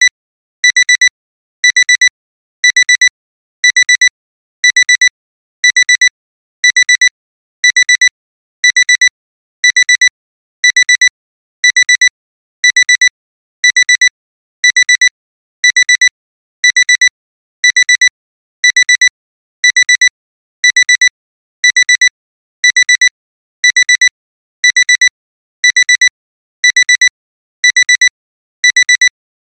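Alarm-clock alarm beeping: short high-pitched beep clusters repeating steadily about once a second. This is the timer's continuous end-of-countdown alarm.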